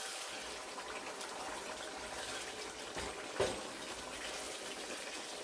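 Pot of potato and minced beef curry boiling, a steady bubbling hiss, while a spatula stirs through it and knocks against the pan twice, about three seconds in.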